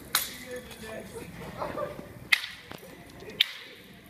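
Sharp cracking blows and clatter as a wooden pole and stools smash the wreckage of a model crane truss on concrete pavement. Three hard hits stand out: one right at the start, one a little past two seconds in and one about three and a half seconds in, with lighter knocks between.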